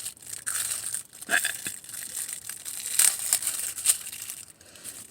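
Plastic food packaging crinkling and crackling as it is handled and squeezed, with a few sharp crackles.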